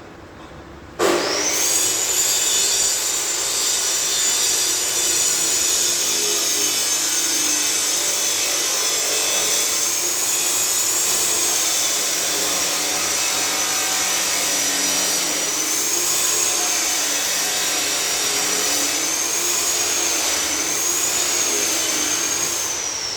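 Angle grinder working metal: it starts abruptly and runs with a high whine that wavers in pitch as the disc is pressed on and eased off. Near the end it is switched off and the whine starts to fall as the disc winds down.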